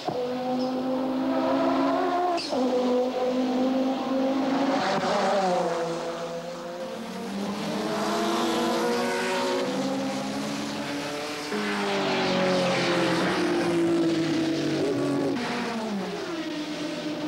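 Racing-car engines at full effort, their pitch climbing and dropping again and again as cars accelerate, shift and brake past, several cars at once.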